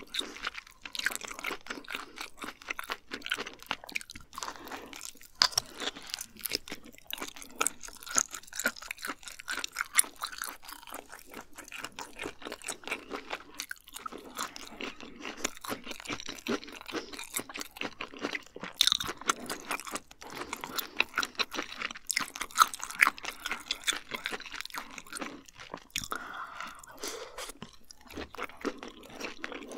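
Close-miked chewing and biting of cooked abalone: a dense, irregular run of small wet crunches and clicks from the mouth.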